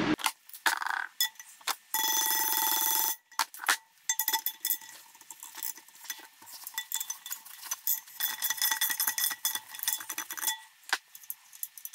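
Ratchet wrench clicking as the 12-point bolts of a two-piece BBS LM wheel are undone: a few single clicks, then a fast run of clicking about two seconds in, then dense irregular clicking. The aluminium rim rings like a bell with the clicks.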